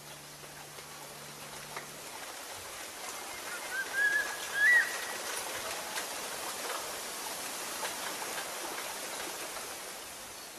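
Held notes of background music stop about two seconds in, leaving a steady rushing hiss like running water. A few short bird-like chirps come about four seconds in and are the loudest sounds, and the hiss fades toward the end.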